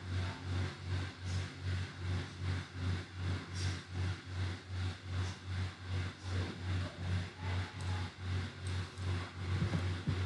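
A low machine hum that pulses evenly about three times a second.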